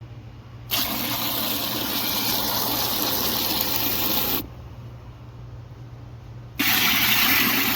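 Water gushing steadily, turned on and off twice: two runs of a few seconds each, with sharp starts and stops.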